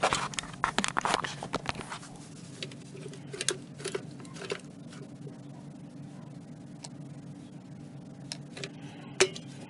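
Caulking gun being handled and squeezed to press silicone sealant onto a plastic glazing shim: a quick run of clicks at first, then scattered clicks from the trigger and plunger rod, with a sharper click near the end, over a steady low hum.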